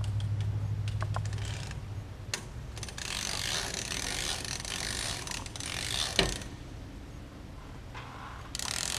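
Hand-cranked torque multiplier ratcheting and clicking with a couple of sharper clicks as it is worked to loosen the third-stage low-pressure turbine wheel of a Pratt & Whitney PW545A turbofan.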